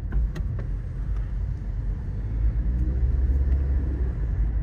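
Car running, a steady low rumble, with a few light clicks in the first half second.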